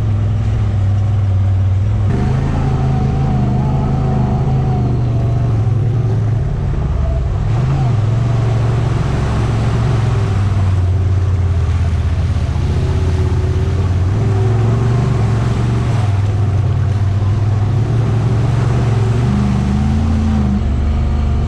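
Side-by-side UTV engine running under way on an off-road trail, its note steady but stepping up and down in pitch a few times as the throttle changes.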